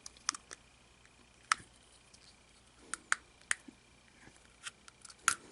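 Light plastic clicks of a DianSheng speedcube and its pieces being handled: about eight short, sharp clicks at irregular intervals.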